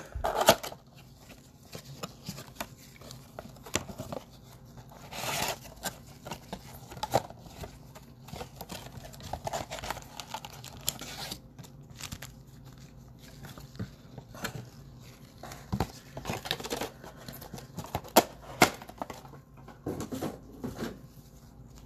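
Plastic wrapping of a trading-card blaster box and its packs being cut and torn open, crinkling and tearing in irregular bursts with scattered small clicks.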